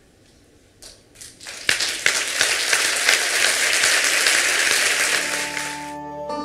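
Large audience applauding: a few separate claps about a second in, quickly building into full, dense clapping that fades near the end as music comes in.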